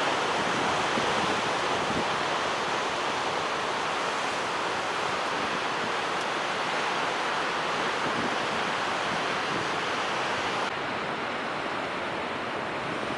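Steady rushing of ocean surf and wind along the coast, an even roar with no distinct wave breaks; the higher hiss eases a little near the end.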